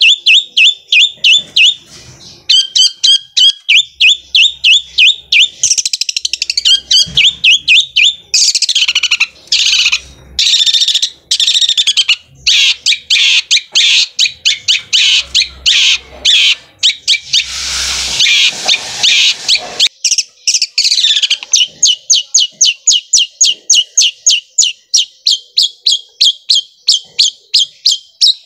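Long-tailed shrike (cendet) singing loudly in fast, evenly repeated sharp notes at about four a second. Through the middle the notes run together into a dense rapid rattle, the sewing-machine-like roll prized in a bird in full song (gacor).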